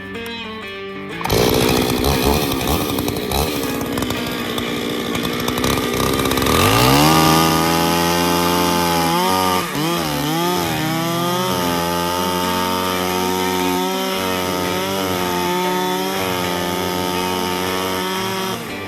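Two-stroke chainsaw running loud. About six seconds in it revs up to a steady high pitch, which dips and wavers for a couple of seconds and then holds.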